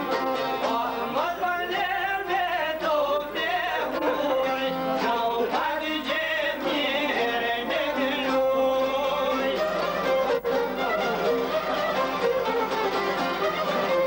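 Live folk music on strummed long-necked lutes with a fiddle playing an ornamented, wavering melody over a held drone.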